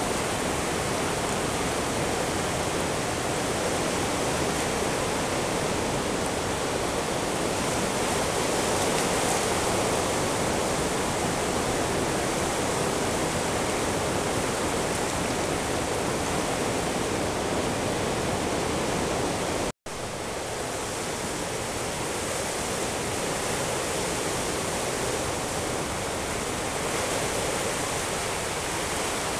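Steady rushing surf on a rocky boulder shore, an even roar of water with no distinct wave breaks. It drops out for an instant about two-thirds of the way through, then resumes.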